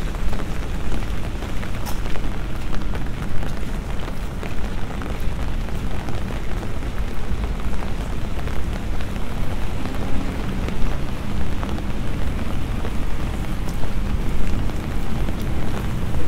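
Steady rain falling on a wet brick-paved street: an even, unbroken hiss over a strong low rumble.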